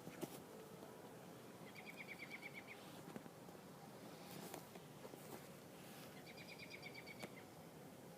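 A bird giving a short rapid trill twice, each about a second long and a few seconds apart, over faint outdoor background noise.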